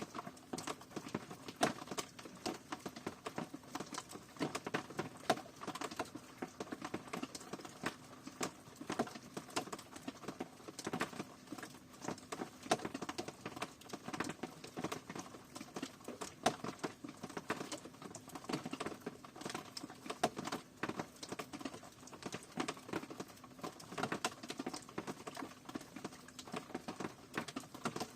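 Rain falling, a dense and irregular patter of individual drops striking a surface.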